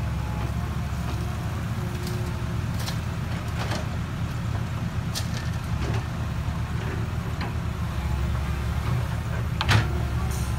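Komatsu PC130 hydraulic excavator's diesel engine running steadily while it loads soil into a dump truck, with scattered knocks and rattles of dirt and rock. A sharp clank near the end as the bucket digs back into the ground.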